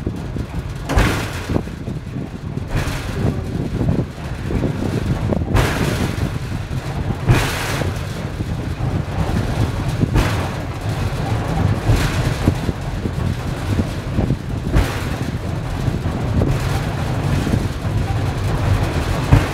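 Funicular car descending on its rails: a steady low rumble, broken every one to three seconds by a short rushing noise.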